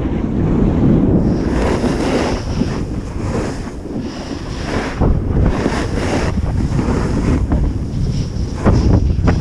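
Heavy wind buffeting on an action camera's microphone during a fast run down a packed-snow slope, with swells of hissy scraping as edges carve across the snow, strongest about two seconds in and again around six seconds.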